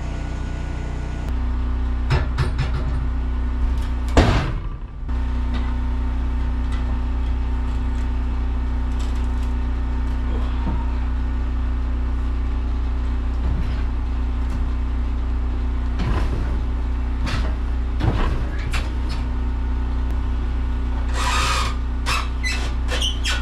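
Wood-Mizer LT15 Wide sawmill's motor running steadily, stepping up about a second in, with scattered knocks and clunks of a hemlock cant being turned over on the mill bed with a cant hook, heaviest near the end.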